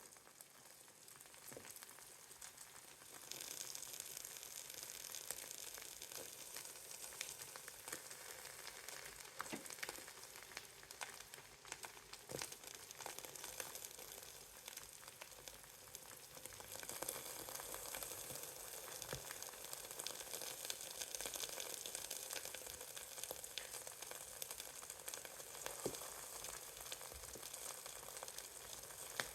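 Eggs frying in a pan: a steady high sizzle full of fine crackles and scattered pops, growing louder about three seconds in and again about halfway through.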